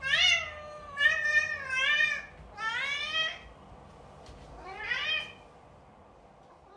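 A domestic cat meowing repeatedly: about five drawn-out meows in the first five seconds, each sliding up and down in pitch.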